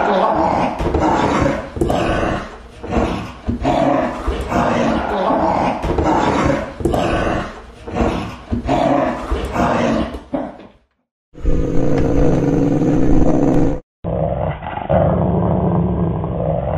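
A dog growling in rough bursts about a second apart, then two further separate growling recordings that each cut off abruptly, with short silent gaps between them. The last recording sounds dull, with no treble.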